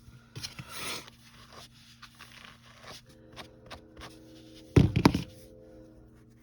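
A wire pet brush scraping through a fluffy acrylic-yarn gnome beard, with scattered small clicks. Two loud knocks come about five seconds in.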